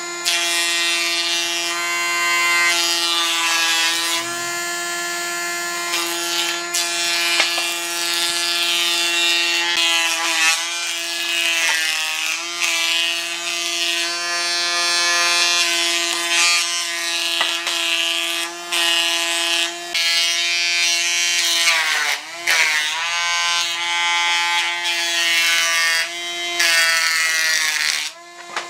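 Handheld electric power tool with a high-speed motor running steadily with a high whine and a hiss from the cutting. Its pitch sags briefly a few times, most deeply about three quarters of the way through, then picks back up.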